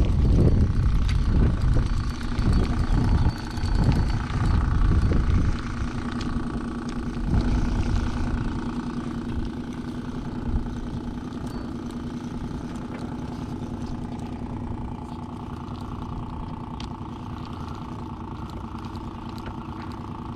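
A boat motor running steadily as the jon boat trolls, a constant hum. For the first several seconds it sits under a heavy, uneven low rumble that fades out.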